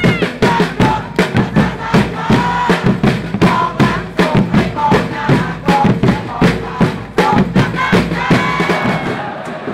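A football crowd chanting and singing together in unison, carried by a steady drumbeat of about two or three hits a second.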